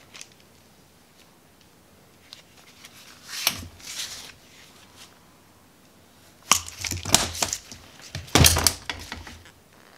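Hand lug crimper squeezing a lug onto a 1-gauge battery cable, with a crunch about three and a half seconds in. Later comes a clatter of clicks and knocks as tools and cable are handled and set down on the workbench, loudest near the end.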